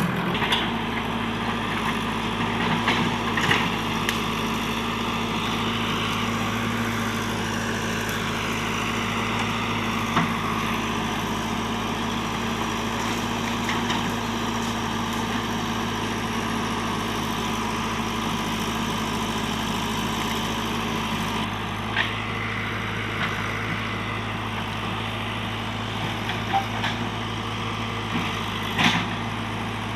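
Diesel engine of a JCB earthmoving machine running steadily, with a few short knocks now and then.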